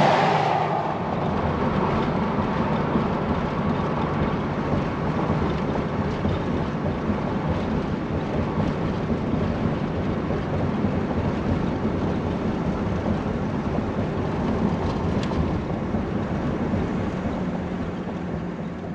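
A vehicle rushes past right at the start, then steady road, wind and engine noise inside the cab of a Coachmen Leprechaun Class C motorhome driving at highway speed. The noise fades out at the very end.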